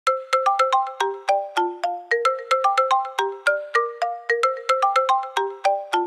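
Electronic alarm ringtone: a quick melody of short pitched notes that ring and die away fast, about four notes a second.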